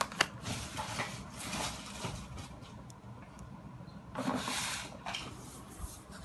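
Handling noise from a plastic blister pack holding a utility knife: a few sharp clicks at the start, then irregular rustling, loudest about four seconds in, over a low steady hum.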